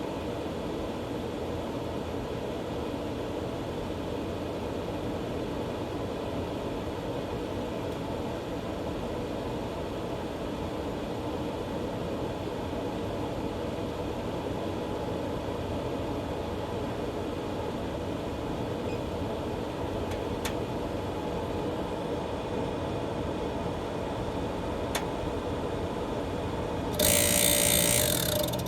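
Green Mountain Grill Jim Bowie pellet grill running with a steady, very loud mechanical noise, which the owner takes for the auger motor after the auger was cleaned and reassembled. Near the end it briefly gets louder, with a steady tone in it, for about a second and a half.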